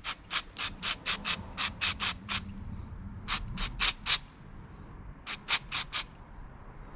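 Aerosol brake cleaner sprayed in short hissing squirts onto an intake air temperature sensor to wash dirt off it, in three quick runs of squirts.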